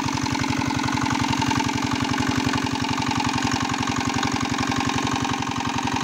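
Single-cylinder diesel engine of a shallow-machine irrigation pump running steadily with a fast, even chugging, driving a pump that throws a jet of pond water into the air to aerate a fish pond, with the spray splashing back onto the water.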